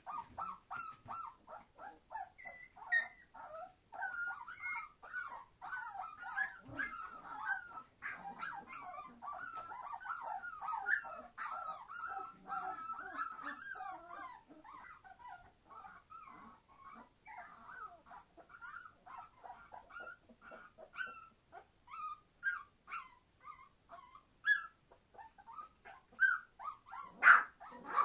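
A litter of three-week-old Entlebucher Mountain Dog puppies crying: many short, high-pitched cries overlapping in a dense chorus, thinning out about halfway through, with a few louder single cries near the end.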